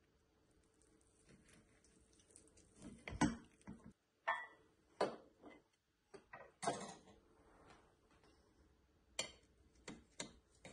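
Metal knife and cake server clicking and scraping against a porcelain cake stand while a baked quiche is cut and a slice is lifted: a scattered series of sharp taps and clinks, the loudest about three seconds in.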